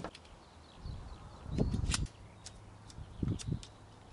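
Sectional metal whip-antenna rods clicking and tapping as they are handled and fitted together, a scatter of short sharp clicks, with two brief low rumbles.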